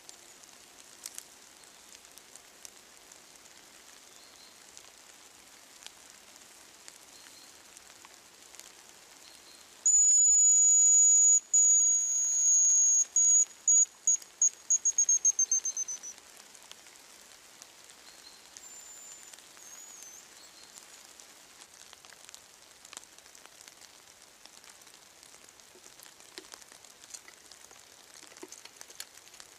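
Hazel grouse song whistled close and loud, about ten seconds in: a thin, very high whistle held for a couple of seconds, then a run of quick short notes falling slightly in pitch. Light rain patters steadily throughout.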